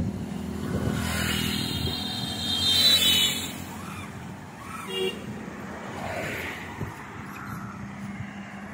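Road traffic: a vehicle passes by close, swelling and fading between about one and three and a half seconds in. A brief horn toot comes about five seconds in, over a steady low hum of traffic.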